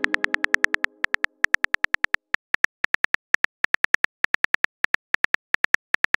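Phone keyboard click sounds as a text message is typed out: a rapid run of short ticks, about eight a second. A pitched ringing tone fades out in the first second.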